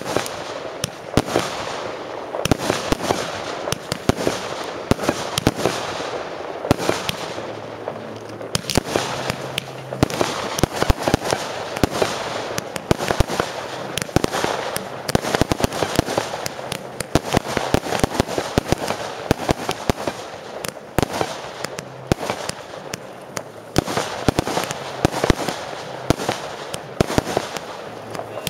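Professional aerial fireworks display: a rapid, continuous run of bangs from shells and cakes bursting overhead, several reports every second over a steady crackle.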